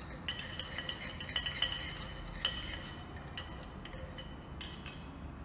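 Bar spoon stirring in the stainless steel tin of a Boston shaker, clinking repeatedly and irregularly against the metal sides with a bright ring. The stirring dissolves sugar into lime juice to make a sweet and sour base.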